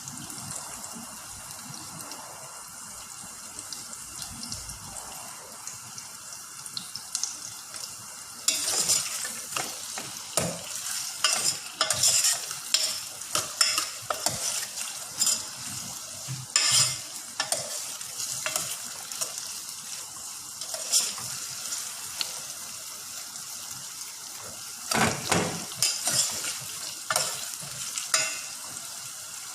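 Food sizzling as it fries in a pan. From about a third of the way in, a utensil scrapes and knocks against the pan many times as the food is stirred.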